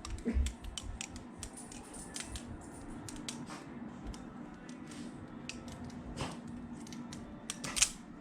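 Hinderer Nieves balisong being flipped: irregular sharp metallic clicks and taps as the handles and blade swing around the pivots, with a louder clack near the end.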